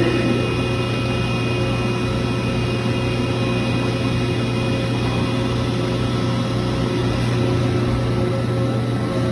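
Hydraulic power unit of an LVD PPEB CNC press brake running at idle: a steady hum with a strong low drone and several constant higher tones.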